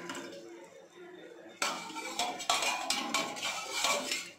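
Steel kitchen utensils clanking and clinking against an aluminium cooking pot. A quieter stretch gives way, about a second and a half in, to a loud run of clatter that lasts a couple of seconds.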